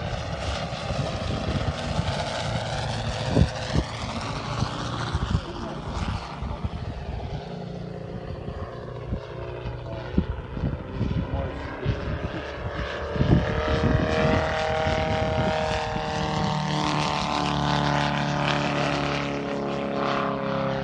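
The Valach 420 petrol engine and propeller of a 4.5 m radio-controlled Yak 54 aerobatic plane flying overhead. Its drone rises and falls in pitch as the plane manoeuvres and passes, growing louder and steadier in the second half, with scattered short thumps.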